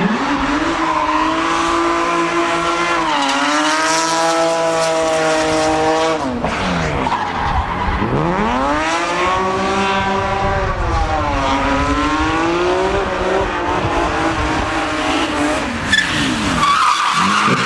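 A drift car's engine revving hard on track, its pitch climbing and held high, falling back at about six seconds and again near the end, then rising once more. Tyre squeal from the sliding car runs under the engine.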